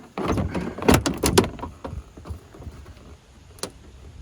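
Plastic rear bumper cover of a 2023 Acura Integra being pulled off the car, its retaining clips popping loose in a cluster of sharp snaps about a second in, then plastic rubbing and one more click near the end.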